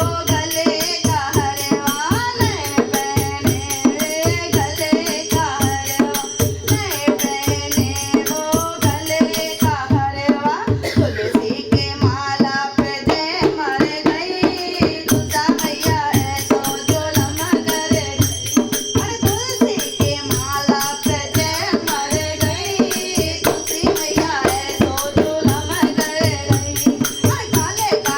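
Indian devotional bhajan music: a hand drum keeping a steady quick beat with jingling percussion on each stroke, under a bending melody line.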